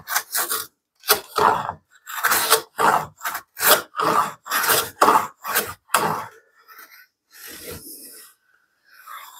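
Metal hand plane shaving a wooden board's edge in quick short strokes, about two a second, each a brief scraping swish. The strokes stop about six seconds in, leaving only faint rustling.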